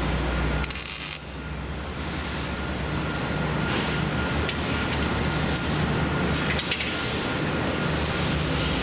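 Steady metal-shop machinery noise with a low hum, and a few sharp metal clinks in the second half as steel parts are handled in a clamping fixture.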